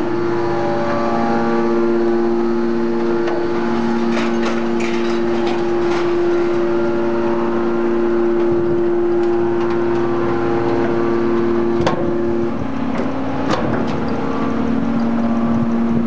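Hydraulic metal scrap baler running, with a steady drone and whine from its hydraulic power unit. The tone shifts lower about twelve seconds in. Scattered metallic knocks and clanks come from the scrap in the press, the sharpest one near the twelve-second mark.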